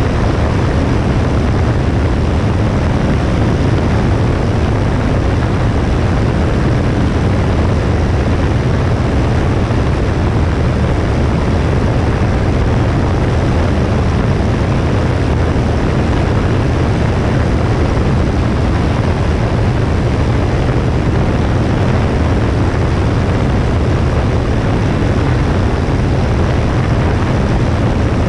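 Cessna 172S's propeller and four-cylinder Lycoming engine running at a steady power setting, a constant drone heard from a wing-mounted camera, with no change in pitch or level.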